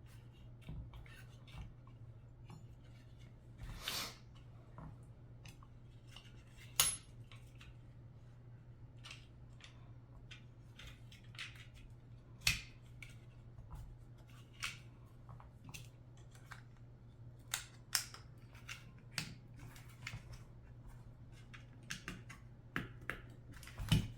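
Scattered small clicks and taps of Glock pistol parts being handled during a trigger swap, with a few sharper clicks, over a steady low hum.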